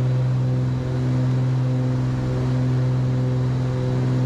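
Cessna 310's twin piston engines and propellers at climb power just after takeoff, a steady, even drone heard in the cockpit.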